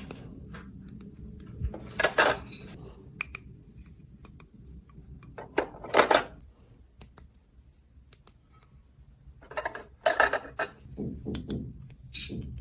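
Small plastic toy pieces being handled: scattered light clicks and clatters, with a few short rustling scrapes about two, six and ten seconds in.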